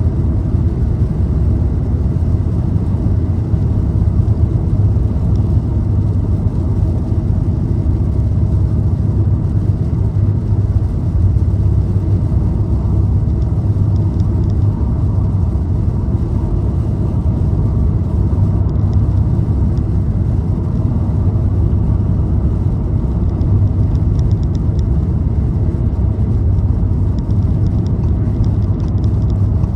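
Car driving at a steady speed: an even, low rumble of engine and tyre road noise with no changes.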